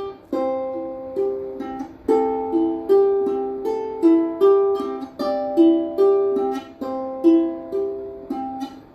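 Ukulele strumming chords, one struck about every second and left to ring and fade, with no voice.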